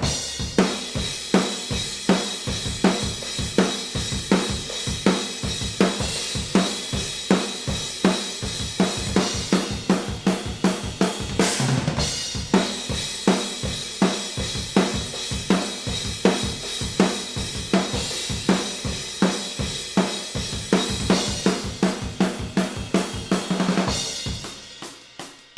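Acoustic drum kit played in a steady groove of kick, snare, hi-hat and cymbals, heard unprocessed through overhead and room microphones combined, so the hits carry the room's ambience. A cymbal crash comes about halfway through, and the playing drops much quieter near the end.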